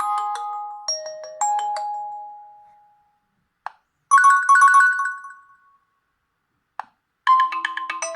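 Nokia G20 ringtones played back one after another: a melody of bright electronic notes fades out, then a short run of chime notes rings about four seconds in and dies away, and a new melody starts near the end. A brief click comes just before each new tone.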